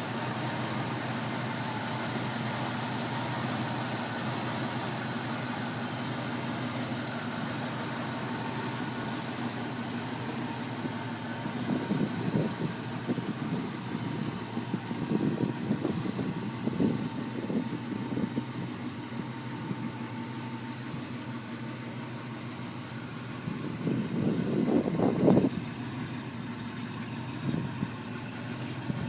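1956 Chevrolet Bel Air engine idling steadily, with louder uneven stretches about twelve seconds in and again near the end.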